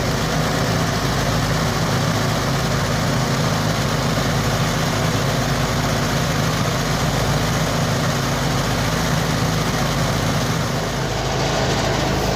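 Engine of a mini rice threshing machine running steadily at constant speed.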